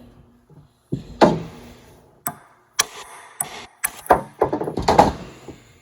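Hammer blows on a car's stock manual shifter assembly, about nine sharp, irregular strikes, as it is being knocked loose for removal.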